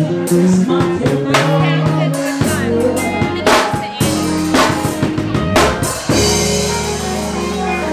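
A live band playing: a drum kit keeps a steady beat with a strong hit about once a second, over a moving bass line, with cymbals washing in over the last two seconds.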